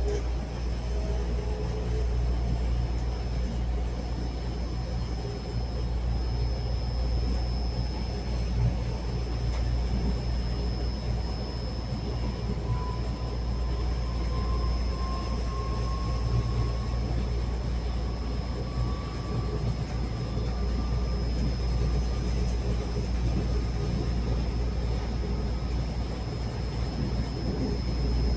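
Local passenger train running, heard from on board: a steady low rumble with a thin, steady high whine. Through the middle, a faint tone rises slowly.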